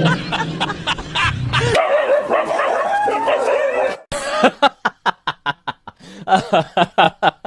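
A frightened dog yelping and whining with wavering cries, then a fast run of short, evenly spaced sounds, about four a second, from about four seconds in.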